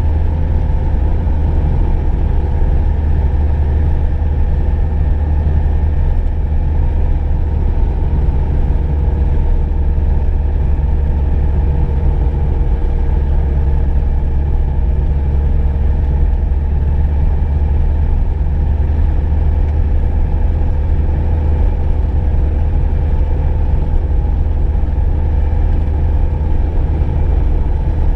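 Car being driven at a steady pace: a steady low engine and road rumble that holds evenly, with no change in speed.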